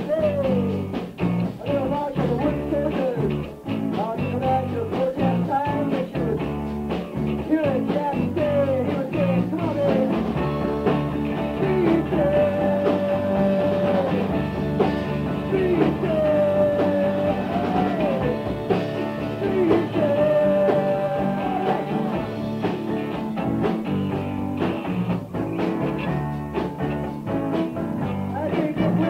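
Rock band rehearsal recording: full band playing, with a lead line of bending, held high notes over steady bass and chords.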